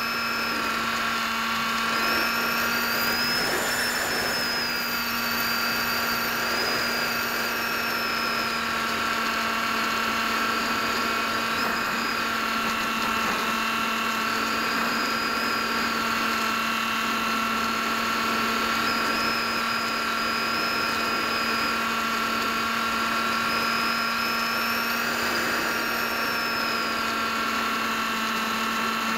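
Electric motor of an AXN foam RC plane, picked up by the plane's onboard camera: a steady hum with a high whine that rises and falls several times as the throttle changes.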